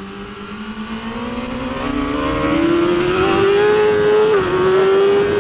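Race motorcycle engine heard onboard, accelerating hard with its note rising steadily. About four seconds in it dips briefly at a gear change, then holds high, over a constant rush of wind noise.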